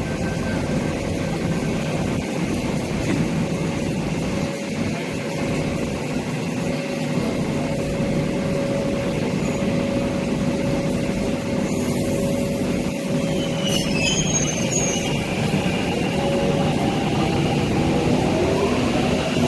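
MTR Kwun Tong Line electric train at the platform, a steady rumble and hum with one held tone from its running equipment. Near the end it begins to pull away.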